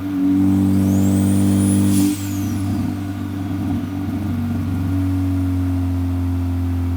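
Turbocharged Ford Focus ST engine running in a steady drone while driving, with a high whistle rising and then falling in the first couple of seconds, cut off by a sharp burst about two seconds in, after which the engine note wavers before settling.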